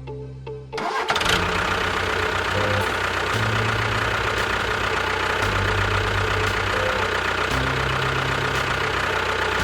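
A steady engine-like running noise that starts about a second in and cuts off at the end, over background music with a changing bass line.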